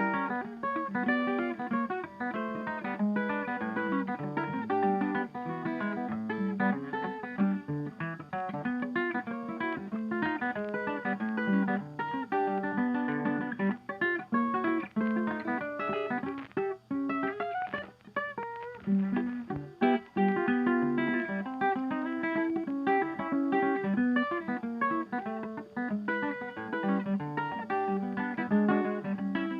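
Background music of fast, rhythmic plucked and strummed guitar.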